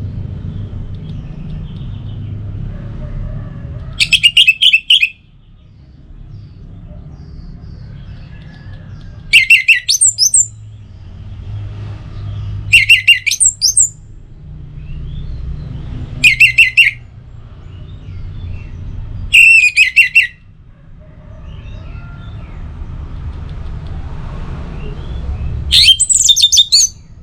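Orange-headed thrush singing: six short, loud song phrases a few seconds apart, over a steady low rumble.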